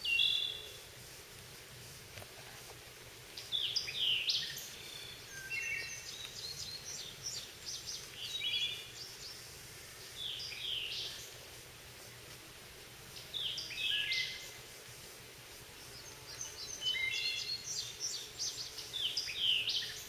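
White-eyed vireo and wood thrush singing, short song phrases repeating every few seconds over faint steady background noise.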